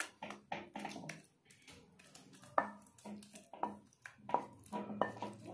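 Wooden spatula scraping and knocking against a kadai and a steel bowl as thick carrot halwa is scooped out and dropped in: a run of irregular scrapes, soft thuds and taps, with a few sharper knocks in the second half.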